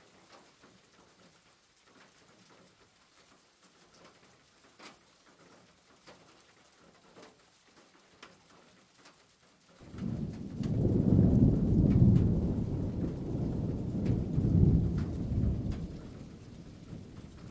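Faint wet squelching of a hand mixing a batter of grated vegetables and chickpea flour in a plastic bowl. About ten seconds in, a loud low rumble swells up, holds for several seconds and fades near the end.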